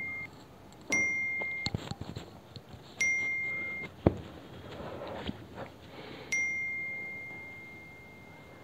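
Mobile phone message notification chime: a single bright ding struck three times, roughly two to three seconds apart, each ringing out and fading, the last one longer. The chimes signal incoming OTP text messages. A soft thump and rustling come about four seconds in.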